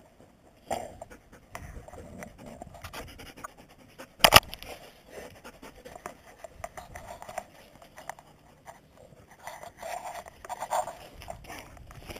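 Scratchy rustling and scraping of a body-worn camera rubbing against clothing and a dog's fur, with small scattered clicks and one sharp knock about four seconds in.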